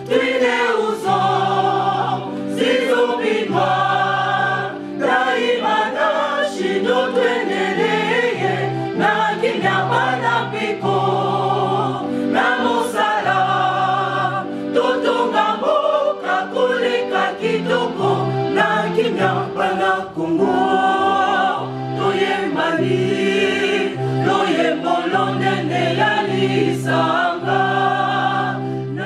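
A choir of several voices singing in harmony, backed by a low bass note that comes in on a regular beat.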